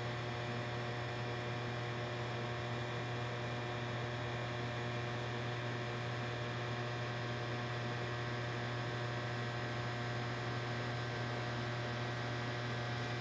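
Steady electrical hum, one low drone with several fixed higher tones over it, unchanging throughout: the room tone of a large aircraft hangar.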